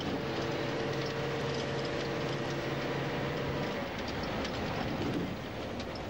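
Engine and road noise of a moving bus heard from inside the cabin: a steady rumble with an engine hum that fades out about four seconds in.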